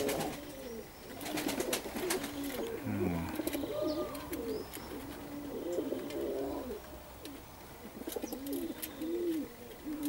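A flock of Perm gryvun (mane) pigeons cooing, with many short rising-and-falling coos that overlap and repeat throughout. Scattered sharp clicks come through among them.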